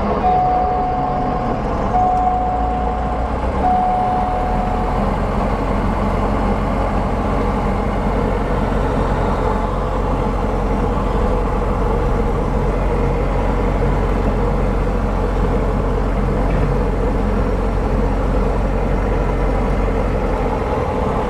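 Diamond DA40's piston engine and propeller running steadily, heard in the cockpit. Three long steady beeps of a cockpit tone sound in the first few seconds, and the engine note changes a little about 4 s in.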